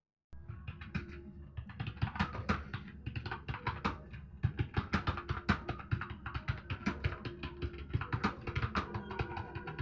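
Fast typing on a keyboard, irregular clicking keystrokes several a second, over background music. The sound starts abruptly just after the beginning.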